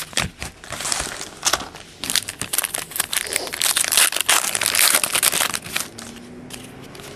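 Trading-card pack wrapper being torn open and crinkled: a dense run of crackles and rustles, loudest in the middle, that dies down about six seconds in.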